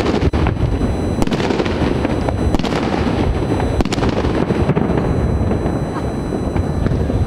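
Many fireworks going off at once across a city: a dense, unbroken roll of bangs and crackling, with sharper single bangs standing out every second or so.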